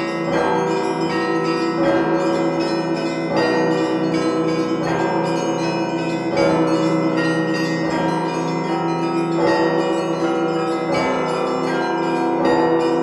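Russian Orthodox church bells rung together, heard close up from the bell tier. Smaller bells strike in quick patterns over a heavier stroke about every second and a half, and the bells ring on as a dense, sustained chord.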